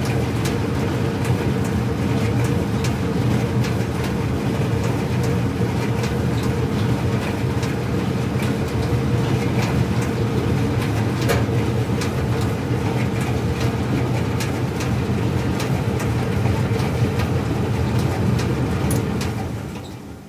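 Clothes dryer running: a steady low rumble and hum of the tumbling drum, with scattered light clicks. It fades out near the end.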